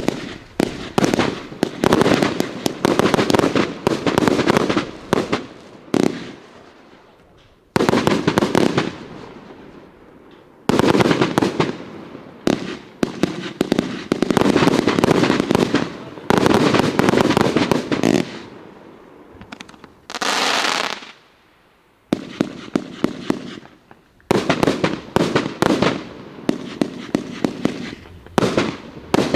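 Riakeo 'Peking Opera 3' firework going off: rapid, dense cracks and pops in several loud bursts of a few seconds each, with short lulls between them.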